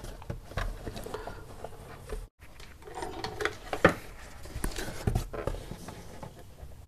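Cardboard box being handled and its tape seal cut and torn open with scissors: scattered rubbing, scraping and clicking of card and tape, with a stronger scrape about four seconds in. All sound cuts out briefly a little past two seconds in.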